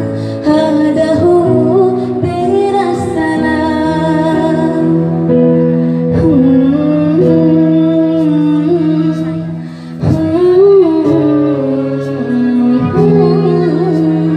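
Live music: a female singer sings into a microphone over an electronic keyboard and an acoustic guitar, amplified in a large hall.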